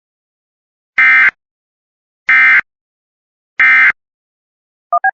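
Emergency Alert System end-of-message signal: three short, identical SAME digital data tones, each about a third of a second long, about 1.3 seconds apart, marking the end of the alert. Near the end a quick run of short beeps at changing pitches begins.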